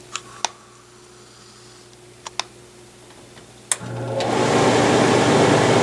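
Pellet stove's fan motor starting: a few light clicks, then a sharp click about three and a half seconds in as the fan switches on and spins up into a loud, steady rushing whir.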